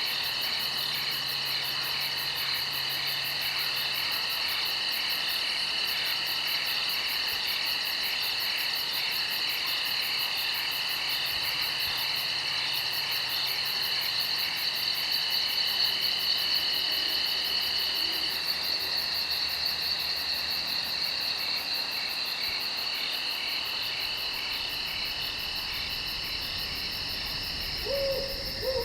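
Steady chorus of night insects, crickets or katydids, trilling without a break in several high-pitched layers, one of them pulsing evenly. A couple of short, lower calls come near the end.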